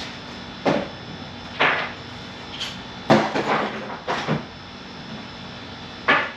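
Hand tools being put away off-camera: a handful of sharp clanks and knocks a second or so apart, with a quick cluster of them a little past the middle.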